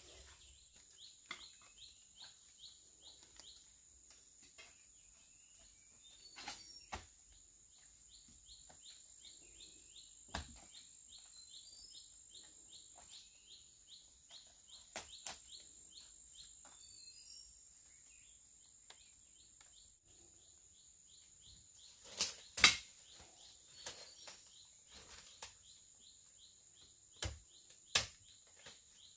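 Tropical forest ambience: a steady high insect drone with a rapid run of repeated high chirps, over scattered footsteps and rustling in dry leaf litter. A few sharp cracks stand out about three-quarters of the way in.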